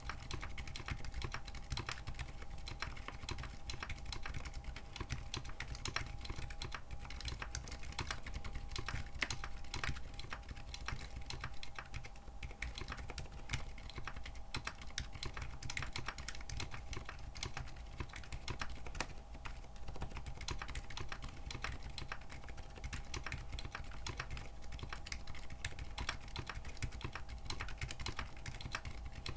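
Continuous fast typing on a mechanical keyboard fitted with JWK Coral silent linear switches, whose rubber dampeners cushion both bottom-out and upstroke. The keystrokes are very quiet, dull clicks in a dense, uneven stream.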